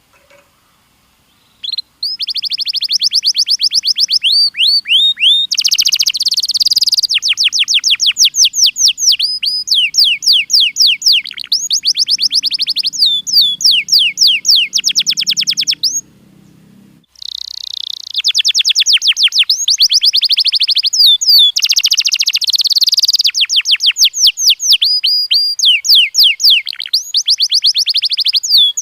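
Domestic canary singing: fast trills of rapidly repeated sweeping notes that start about two seconds in, with a short break about halfway through.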